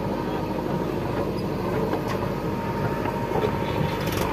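JCB 3DX backhoe loader's diesel engine running steadily as the boom lifts a loaded bucket of soil, with a few faint knocks.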